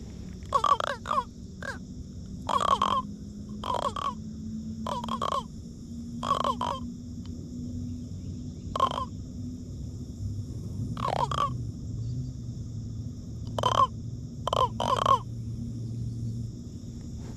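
A catfish held out of the water croaking: about a dozen short, harsh croaks, one every second or two, some in quick pairs.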